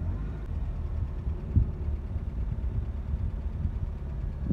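A car's engine and tyres give a low, steady rumble as the car moves slowly, heard close to the ground, with one short dull thump about one and a half seconds in.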